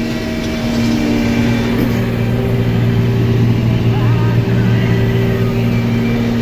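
Combine harvester running, heard from inside the cab: a steady engine and machinery drone with a low hum.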